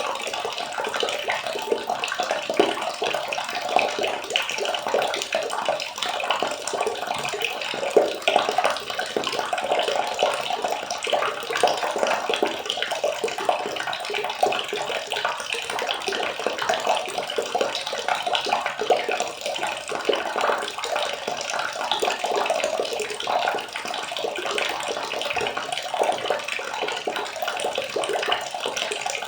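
Water running and splashing: a continuous, busy sound that stays even throughout.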